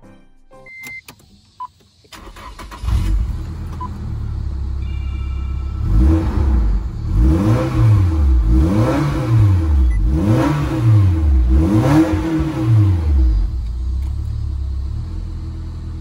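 Nissan Silvia S14 Q's SR20DE inline-four starting about two seconds in and idling. From about six seconds in it is blipped four times in a row, each rev rising and falling, and then it settles back to a steady idle. Heard from inside the car's cabin.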